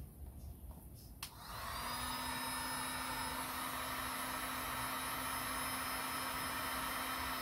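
Heat gun switched on with a click about a second and a half in, then its fan running steadily with a high whine and hiss as it blows hot air onto the plastic.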